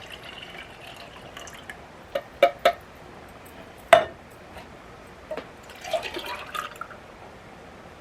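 A spoon knocking and scraping on cans and a glass jar as their contents are emptied into a pot: three quick clinks a little after two seconds in, a sharper knock about four seconds in, then a short wet scraping and plopping stretch around six seconds.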